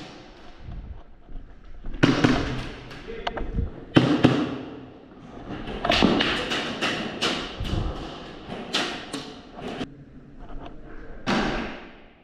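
A string of sharp thumps and knocks at irregular intervals, clustered through the middle of the stretch, with one more near the end.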